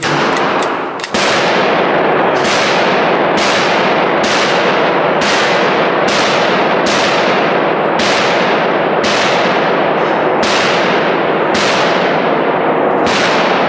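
Gunfire at a shooting range: a steady string of about a dozen shots, roughly one a second, starting about a second in. Each shot is followed by a ringing echo. The shooters' own pistol is jammed, so the shots come from another lane.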